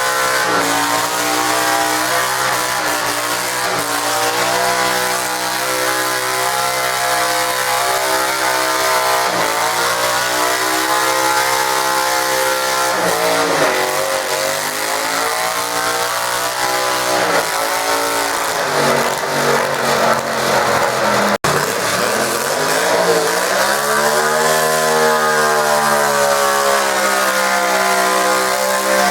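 Garden tractor engine run hard under load pulling a weight sled, its pitch sagging and recovering several times. A brief dropout comes about two-thirds of the way through, then the engine climbs back up in pitch.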